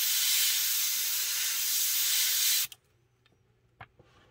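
Master airbrush spraying paint: a steady hiss of air through the nozzle that cuts off sharply about two and a half seconds in, followed by a faint click.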